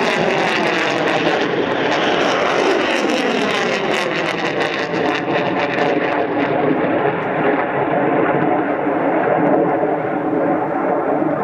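Rocket motors of S-400 surface-to-air missiles in flight after launch: a loud, continuous rushing noise with crackle, its tone sweeping as it goes. The crackle and hiss fade after about six seconds as the missiles climb away.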